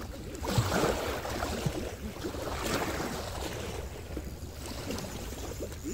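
Small waves washing and lapping over shoreline rocks, swelling in surges a couple of seconds apart, over a steady low rumble of wind on the microphone.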